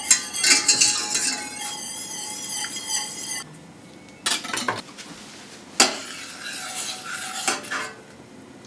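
A wire whisk scraping and ringing against a stainless steel saucepan as it beats a thin cream sauce, stopping abruptly about three and a half seconds in. Then come a few sharp metal clinks against the pan and softer stirring with a spoon.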